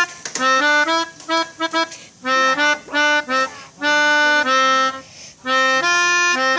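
Melodica (pianika) playing a telolet bus-horn style tune: short phrases of quick alternating notes and two longer held notes, with brief pauses between phrases.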